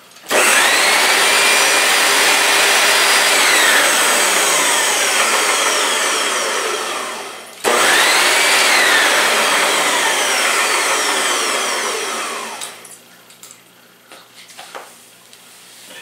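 Upright vacuum cleaner switched on, its motor spinning up with a rising whine and running pretty noisy. It is switched off and straight back on a little past halfway, then shut off and winds down near the end. The running sound has a little whistle in it, which usually means a clog in the vacuum.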